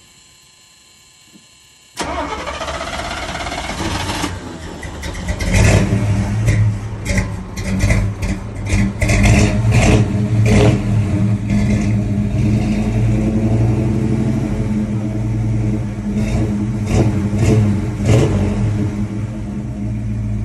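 1976 Chevrolet K10 pickup's engine, not run in 21 years, cranked by the starter about two seconds in and catching within a couple of seconds. It runs unevenly at first, surging and with many sharp pops, then settles into steadier running with a few throttle blips.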